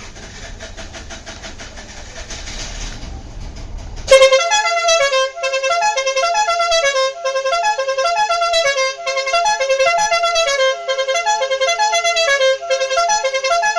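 An electric air horn's motor runs with a rising buzzing noise for about four seconds. Then the horn cuts in loudly and plays a quick tune of stepping notes with short breaks: a multi-tone musical horn working after repair.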